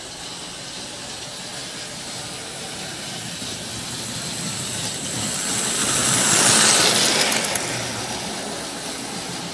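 Model railway locomotive's electric motor and wheels running on the track, a steady whirring rattle with a faint high whine. It grows louder as the train approaches, peaks about six and a half seconds in as it passes close by, then fades.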